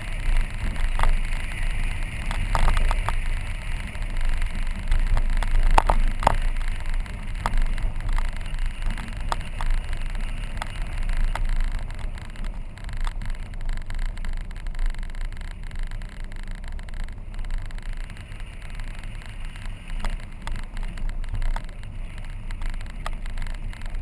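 Car driving along a dirt road: a steady low rumble of tyres and running gear on the loose surface, with scattered clicks and knocks that come thickest in the first half.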